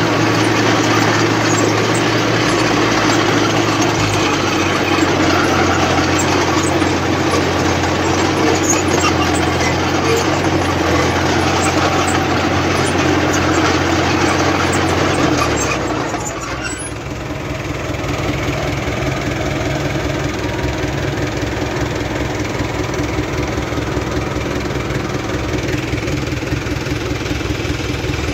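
Diesel farm tractor engine running close to the microphone, with other tractors working nearby. About 16 seconds in the engine note drops and settles lower and quieter.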